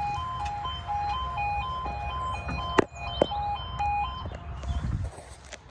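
A UK level crossing's two-tone yodel alarm, an electronic warning that switches rapidly back and forth between two pitches and stops about four seconds in. Two sharp knocks come just before and just after three seconds in, over a low rumble.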